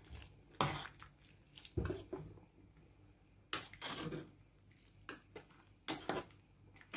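A metal utensil knocking against a cooking pot while stirring a pot of mung bean stew, with several sharp clinks a second or two apart and soft stirring sounds between them.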